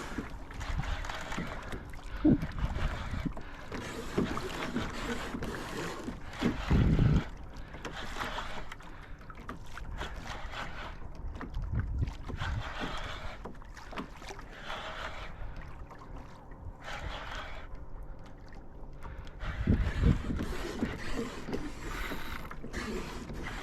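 Water sloshing against a fishing kayak's hull on the sea, with a few low buffets of wind on the microphone, the strongest about seven seconds in and again about twenty seconds in.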